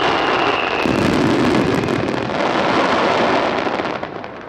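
Aerial fireworks crackling overhead: a loud, dense shower of many small pops that dies away near the end. A high whistle trails off about a second in.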